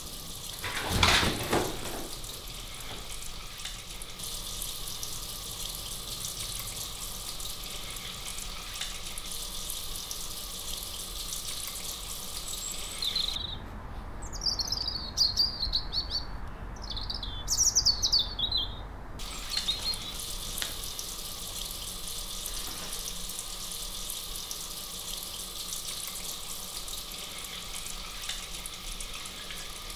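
A tap runs steadily into a bathroom sink. For a few seconds in the middle, birds chirping take its place. There is a brief louder sound about a second in.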